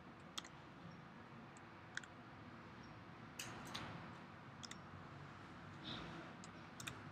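Faint, scattered clicks of a computer mouse and keyboard, about ten light clicks, some in quick pairs, over a low room hiss.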